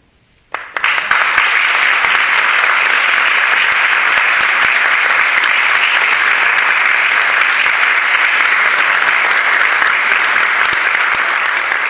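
A small audience applauding, the clapping breaking out suddenly about half a second in and then holding steady.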